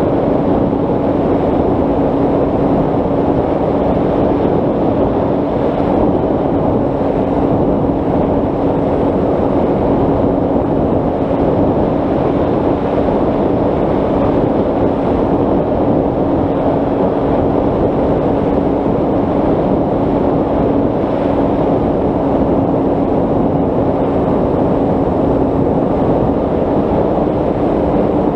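Bixler 3 RC plane's Turnigy 3542 brushless motor and 10x7 propeller droning steadily in flight, a constant tone over heavy wind rush on the onboard camera.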